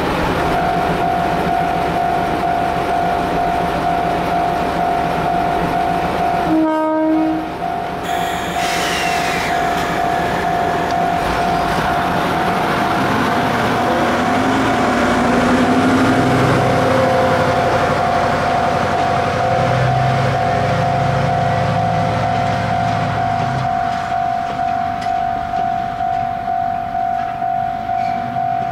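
DD40 diesel shunting locomotives running, with one short horn blast about seven seconds in, then the engine note rising as they work up and pull away. A steady high ringing tone runs throughout, and near the end an even rhythmic pulsing comes in as the locomotives roll.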